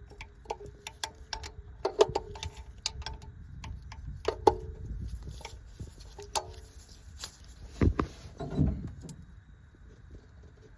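Hand tools working on metal: a run of sharp clicks and clinks, some ringing briefly, as a ground-strap bolt is worked loose, with two heavier knocks near the end.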